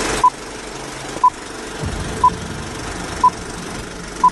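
Five short electronic beeps, all at the same mid pitch, evenly spaced one a second, like a video countdown timer.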